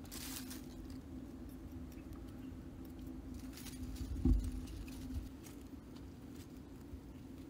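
Soft rustling and light handling noises from hands working grass stems and twigs on dry leaf litter, with a single dull thump about four seconds in, over a steady low hum.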